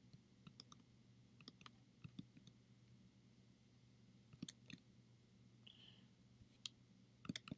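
Near silence: faint, irregular clicking from hands working a computer, over a low steady hum.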